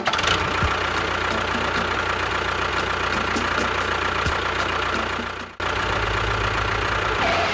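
An engine running steadily at idle, with a low, even hum. It cuts out abruptly about five and a half seconds in and resumes at once.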